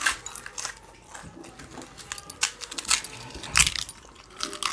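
Crisp hollow panipuri (puchka) shells cracking and being chewed, a handful of sharp crunches spread irregularly, the loudest about three and a half seconds in.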